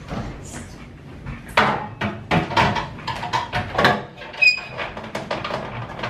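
Refrigerator door opened, then plastic door shelf bins knocking and clicking as they are fitted back into the door, with one short high squeak about four and a half seconds in.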